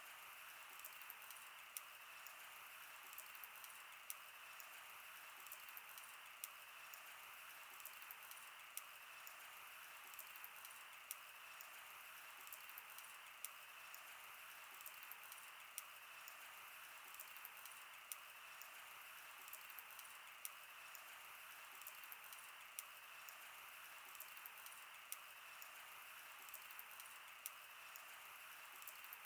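Wood fire burning, with frequent small irregular crackles and pops over a steady soft hiss.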